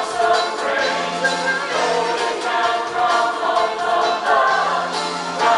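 Mixed choir of men and women singing together.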